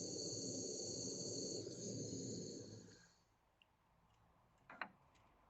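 Jewellery soldering torch running, a steady low rush of flame with a high whistling hiss, cut off about three seconds in as the solder has flowed through the seam. A single sharp click follows near the end.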